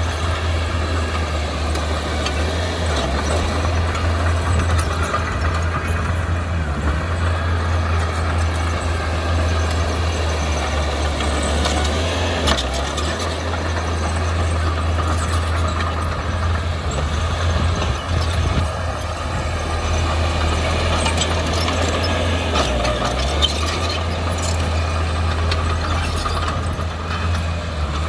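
Heavy-equipment diesel engine running steadily with a deep low hum, with a few light metallic clanks now and then.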